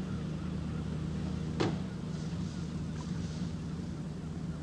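A steady low engine hum, with one short sharp click about a second and a half in.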